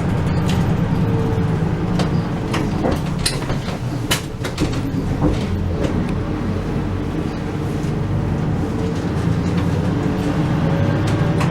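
Route bus running on the road, heard inside the passenger cabin: a steady low engine and road drone with frequent small rattles and knocks from the bodywork.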